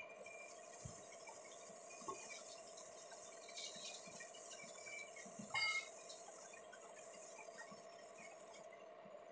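Compressed-air blow gun hissing steadily, cutting off shortly before the end. A sharp metallic clink comes about five and a half seconds in, with a few lighter clinks, over a steady machine hum.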